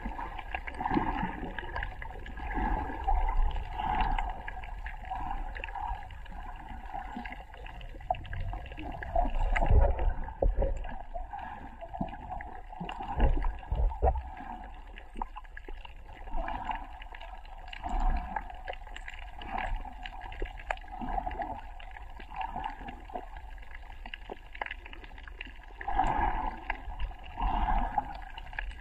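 Muffled underwater sound of water moving and gurgling around a submerged action camera, swelling and fading unevenly. There are a few dull low thumps, the loudest about ten and fourteen seconds in.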